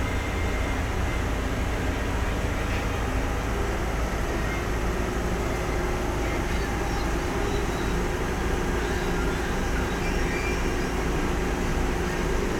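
Plastic washing machine running steadily, a constant motor hum under an even mechanical rush with no change in speed.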